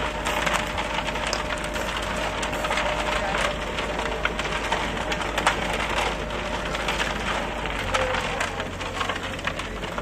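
Wet concrete pouring from a self-loading concrete mixer's drum down its steel discharge chute: a continuous gritty rattle of gravel with many small clicks, over the steady low hum of the mixer's engine.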